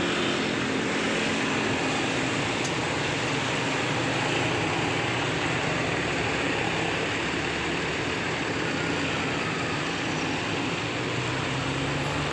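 Steady, loud roadside traffic noise with a heavy vehicle's engine running close by, holding an even level throughout.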